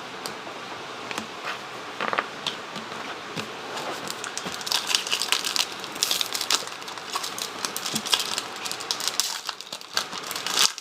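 Crinkling and crackling of a foil trading-card pack and cards being handled, as many small irregular crackles that grow busier from about four seconds in.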